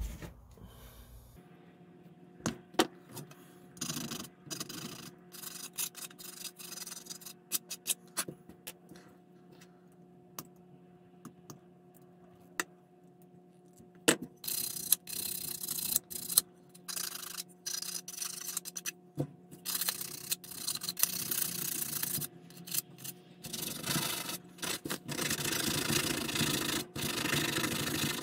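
Sandpaper rubbing back and forth on the cut end of a thin rod, in short bouts that run nearly continuously near the end. Before it come scattered small clicks and taps from handling the rod and side cutters, with one sharp click about 14 seconds in, over a faint steady hum.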